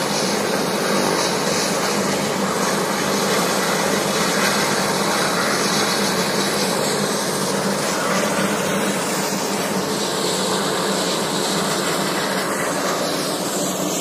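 Helicopter's turbine engine and rotor running steadily: a constant drone with a high whine over it.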